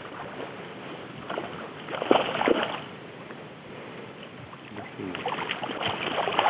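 A hooked bream thrashing and splashing at the surface in shallow water as it is played to the bank, with bursts of splashing about two seconds in and again, louder, in the last second and a half.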